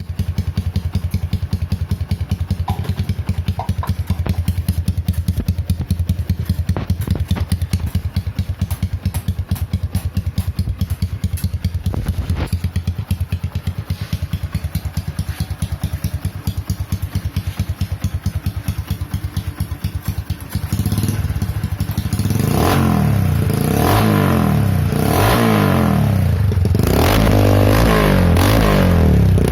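Stock 125 cc motorcycle engine idling with an even, pulsing beat, then revved in repeated rising and falling blips from about two-thirds of the way through. The owner says its running sound is like that of an engine bored out to a 57 mm piston.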